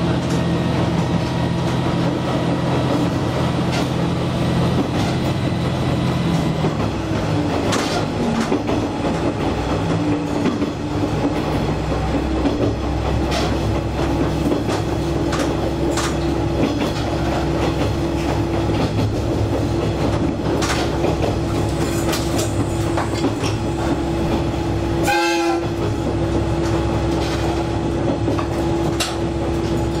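Diesel railcar running on a single-track line: a steady engine and drivetrain hum with scattered clacks of the wheels over rail joints. The engine note changes about seven seconds in, and a short high-pitched sound comes about 25 seconds in.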